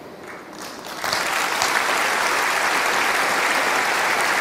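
Audience applause, breaking out sharply about a second in and then holding steady.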